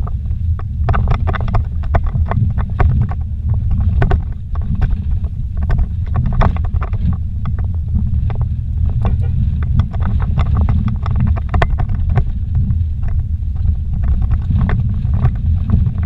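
Vehicle driving over a rough dirt trail, heard from inside the cabin: a steady low rumble with frequent short knocks and rattles as it goes over bumps.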